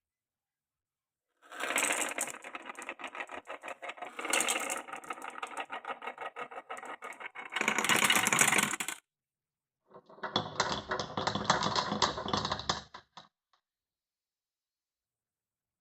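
Marbles rolling and clattering down a wooden marble run: a fast rattle of clicks starts about a second and a half in and stops about nine seconds in, loudest just before it stops. After a short pause a second stretch of rattling lasts about three seconds.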